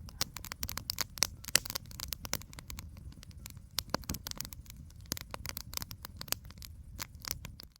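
Campfire crackling: many irregular sharp pops and snaps over a low rumble.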